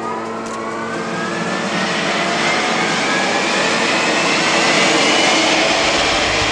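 Gas-turbine engines of the U-95 unlimited hydroplane spooling up: a high whine that rises steadily in pitch over a rushing roar that keeps getting louder.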